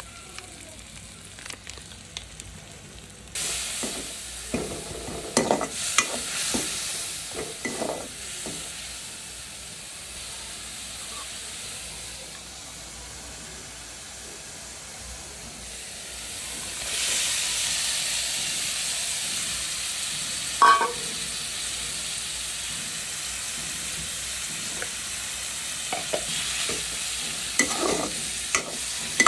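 Food sizzling in hot oil in a metal kadai, first spices and then pieces of pointed gourd frying, while a metal spatula scrapes and knocks against the pan. The sizzle gets louder about three seconds in and again around seventeen seconds in.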